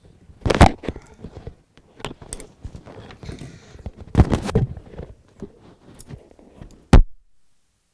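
Handling noise close to the microphone: irregular knocks, rubs and thumps. The loudest is a sharp thump about seven seconds in, after which the sound cuts to silence.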